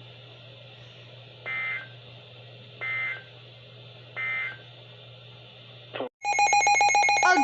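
Three short, identical digital data bursts from a NOAA Weather Radio broadcast, about 1.4 seconds apart: the EAS end-of-message tones that close the warning, over a faint steady hum and hiss. About six seconds in, a much louder buzzing alarm tone cuts in and holds.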